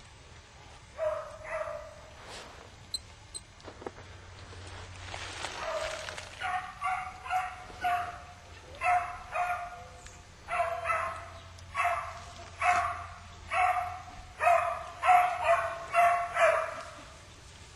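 Hunting beagles baying on a rabbit's trail: a pair of calls about a second in, then from the middle a steady run of short bays, one or two a second, growing louder toward the end.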